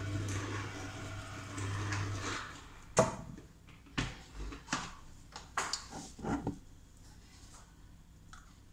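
Electric citrus juicer's motor humming steadily, then stopping about two seconds in. A series of sharp plastic knocks and clatters follows as the juicer's parts are handled.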